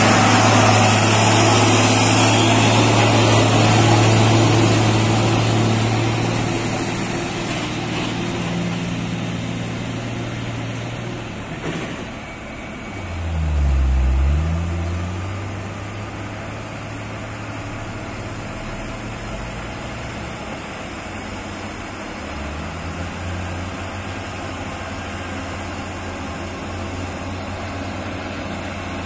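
Heavy Mitsubishi Fuso diesel truck engines pulling under load at low speed, first loud and close, then quieter and steady. About halfway, the engine note drops and climbs back up.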